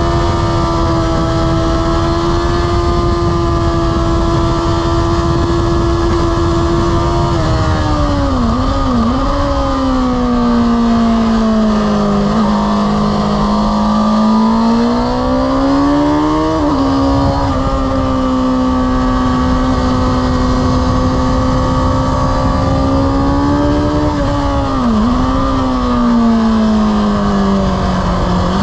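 Sport motorcycle engine run hard at high revs, heard from an onboard camera with wind rush. The engine pitch holds high, then twice drops with a couple of short dips, about a quarter of the way in and again near the end, before climbing back up in between.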